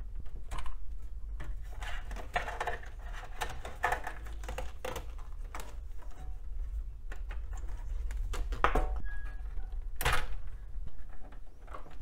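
Hands unplugging cables inside a metal PC tower case: a drive power connector and ribbon cables being pulled off, with scattered clicks, scrapes and rustling of plastic connectors and cable, and two sharper knocks near the end.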